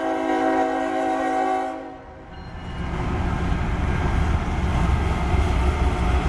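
Union Pacific GE ES44AC locomotive's multi-chime air horn holding a chord, sounded for a grade crossing, cutting off about two seconds in; then the locomotive's diesel engine and wheels rumble loudly as it passes close by.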